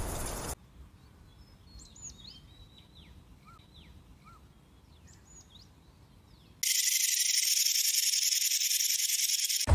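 Faint, scattered small-bird chirps and short whistles over a quiet background. About six and a half seconds in, a loud steady high-pitched hiss starts abruptly and cuts off just before the end.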